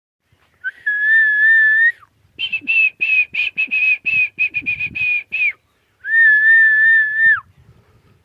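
A person whistling: one long steady note, then a quick run of short whistles at about four a second, then another long note that drops off in pitch at its end.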